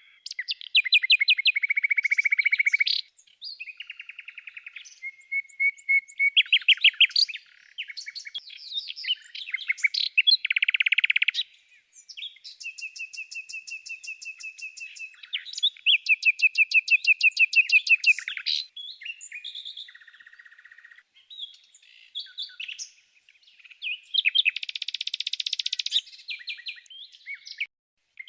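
A songbird singing a long, varied song: phrases of rapid repeated notes and trills alternating with steadier whistled notes, with short pauses between phrases.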